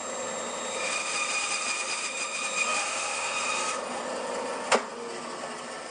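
Bandsaw cutting through a tenon cheek: steady sawing noise with a faint high tone for about three and a half seconds, then the saw runs on more quietly once the cut is through. A single sharp click comes about three-quarters of the way in.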